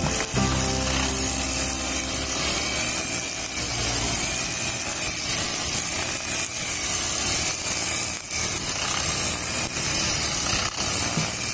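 Backpack brush cutter's small four-stroke engine running steadily at high revs, its nylon trimmer line whipping through grass and dirt.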